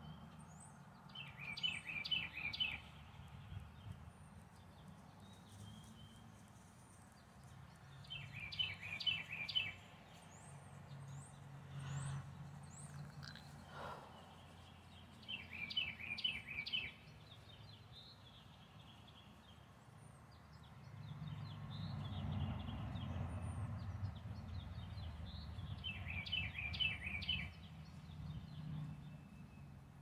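A songbird sings a short phrase of rapid repeated notes four times, about every seven seconds, over a low rumble of road traffic that swells as a vehicle passes in the second half.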